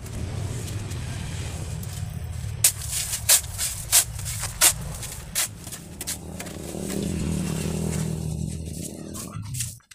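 Square shovel scraping and chopping into a heap of damp sand-cement block mix, with several sharp strikes between about two and a half and five and a half seconds in. Under it a steady low mechanical hum that cuts off abruptly near the end.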